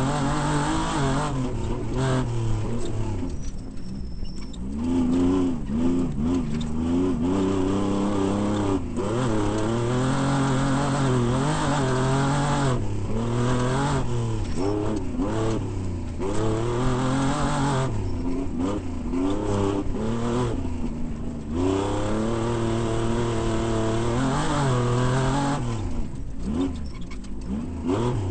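Off-road desert race vehicle's engine running hard, its pitch climbing and dropping again and again as the throttle goes on and off, with a steady hiss of noise above it.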